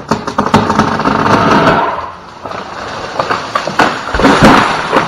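Large lightning-damaged tree limb breaking away and crashing down through the branches with a loud rush of snapping wood and leaves, then hitting the ground with a heavy thud about four seconds in.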